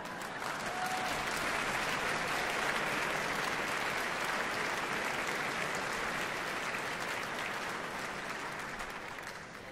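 Large audience applauding, swelling up over the first couple of seconds and dying away near the end.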